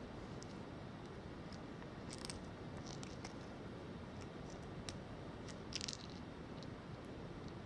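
Faint scattered clicks and short scratchy scrapes over a steady low hiss, the loudest about six seconds in, consistent with a Shiba Inu puppy moving about.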